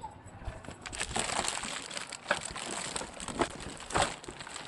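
Plastic wrapping crinkling as plastic-wrapped mixer-grinder jars are handled in a cardboard box, with a few sharp knocks in the second half.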